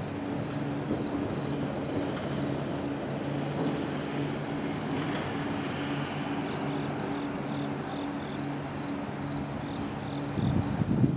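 Norfolk Southern intermodal freight train rolling past with a steady rumble of steel wheels on rail. A few louder low thumps come near the end.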